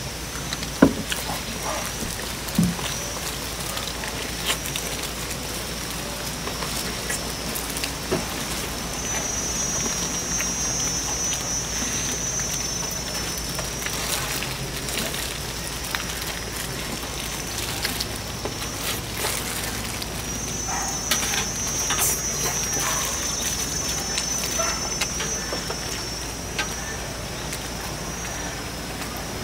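Eating sounds at a table: scattered clicks and knocks, such as utensils and bowls, over a steady background noise. A high, shrill buzz swells up twice for a few seconds each.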